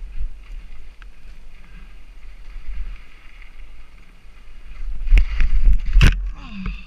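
Mountain bike rattling over a rocky trail with wind on the microphone; about five seconds in comes a clatter of hard knocks, ending just after six seconds in one loud impact: a bike crash.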